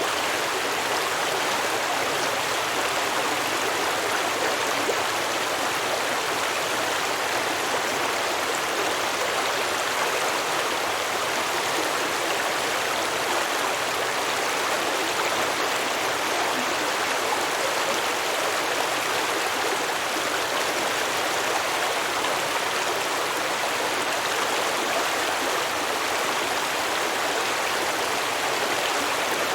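Stream water flowing and babbling over rocks, a steady rushing noise.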